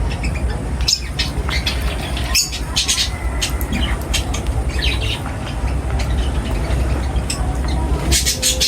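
Birds chirping and squawking in many short, quick calls, clustered near the end, over a steady low rumble.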